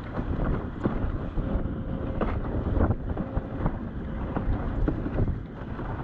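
Gusty wind buffeting the microphone on a foiling windsurf board, with water slapping and splashing against the board in many short, sharp hits.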